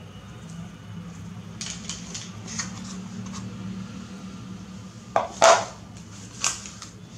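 Hands handling the iPhone box contents on a stone floor. Small clicks and rustles come from the cable and the cardboard tray, then two sharp knocks about five seconds in and another a second later as pieces are set down, over a steady low hum.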